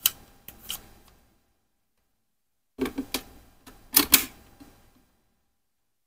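Hard plastic clicks and clacks of the Bandai DX Oneness Raise Buckle being handled and snapped into the DX Desire Driver toy belt: a few light clicks at the start, then a quick cluster of louder clacks about three to four seconds in.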